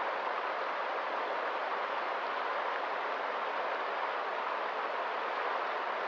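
Swollen, turbulent river rushing over rocks: a steady, even rushing of water with no breaks.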